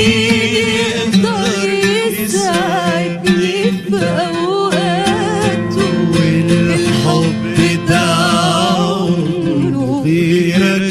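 A woman singing an ornamented Arabic melody with a wavering, sliding pitch, over instrumental accompaniment.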